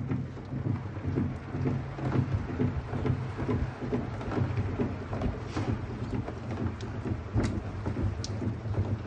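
A honey extractor's drum spinning at speed: a steady low hum with a dense, irregular patter and rattle, and a few sharper clicks near the end.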